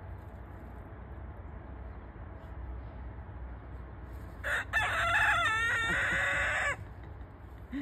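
A young black Silkie rooster crows once, a single cock-a-doodle-doo of about two seconds starting a little past the middle, its pitch wavering before it cuts off sharply. This is a cockerel's newly found crow.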